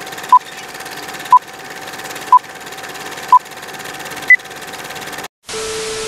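Film-leader countdown sound effect: short beeps about once a second over a steady film-projector running noise, the fourth beep higher in pitch. Just after, the sound drops out for a moment and gives way to TV static hiss with a steady test tone.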